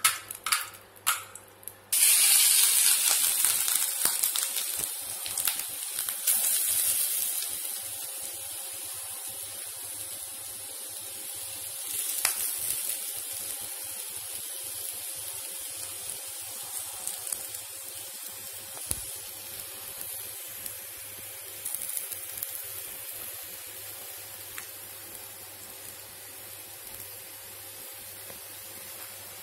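Grated coconut sizzling in hot fat in a pan: a few clicks, then a sudden loud hiss about two seconds in as the coconut goes in, slowly dying down.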